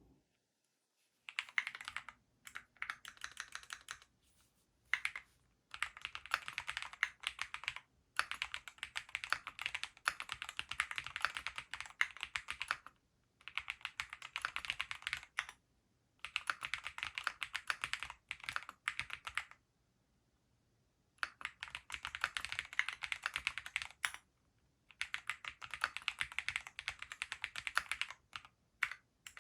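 Graystudio Space65 III custom 65% mechanical keyboard with Gateron Pure Berry linear switches being typed on in quick runs of keystrokes. The runs are broken by short pauses, about every two to four seconds.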